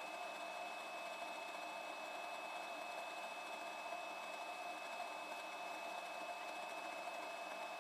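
Steady low background hiss with a faint constant high whine: room tone, with no distinct event.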